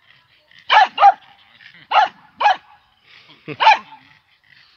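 A dog barking, about six sharp barks in quick pairs, each pair a second or so apart.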